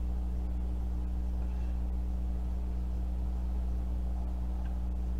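Steady low hum that does not change, with no other clear sound above it.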